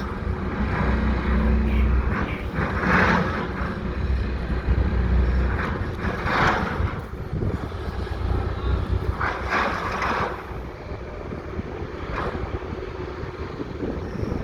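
Heavy excavator diesel engine running with a low rumble, heaviest through the first half, with several short bursts of hiss over it.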